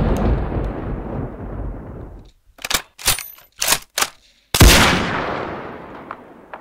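Edited gunfire sound effects: a deep boom dying away, then a quick run of four or five sharp shots, then another heavy boom at about four and a half seconds that fades out slowly.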